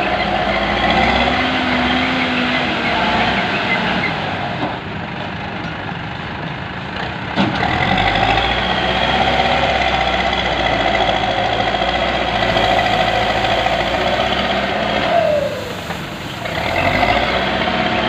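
Bull HD76 backhoe loader's diesel engine and hydraulics working under load, with a steady whine. The revs ease off about four seconds in, then come back up after a single knock about seven seconds in. Near the end the revs fall away with a dropping whine and pick up again.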